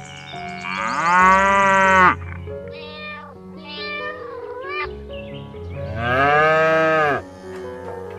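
Cow mooing sound effects: two long moos, the first about a second in and the second about six seconds in, with a few shorter cat meows between them, over soft background music.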